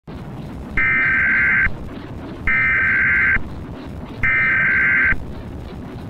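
Emergency Alert System SAME header: three identical bursts of two-tone digital data, each just under a second long and about 1.7 s apart, marking the start of an emergency alert. A steady static hiss runs underneath.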